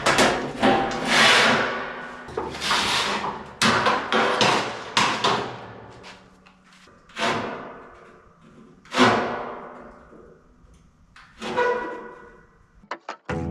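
Sheet-steel car door parts clanking and knocking as they are handled and struck: a dozen or so irregular metallic hits, each ringing out briefly.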